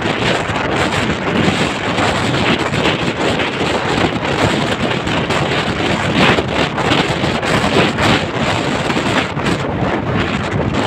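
Loud wind buffeting the microphone, with the rumble of a moving vehicle underneath; no horn sounds.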